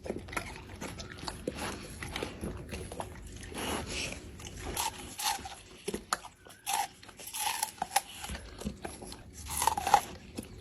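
A dog biting and chewing watermelon, with irregular crunches.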